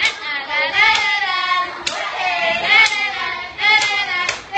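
Young voices singing along together, with a few sharp hand claps.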